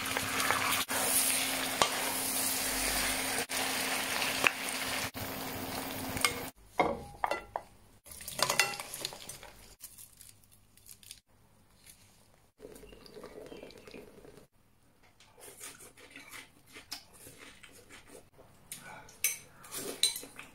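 Spicy seafood and vegetables sizzling loudly in a hot pan as they are stir-fried, with the clicks and scrapes of a wooden spatula. The sizzle cuts off suddenly after about six seconds, leaving only scattered light clinks and taps of dishes and utensils.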